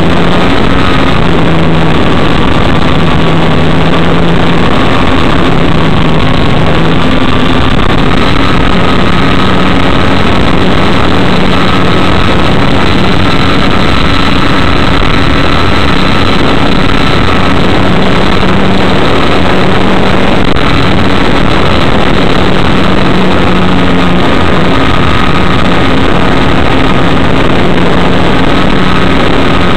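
Model airplane's motor and propeller running steadily in flight, heard very loud and close through the onboard camera: a steady high whine that drifts slightly in pitch over a rushing noise.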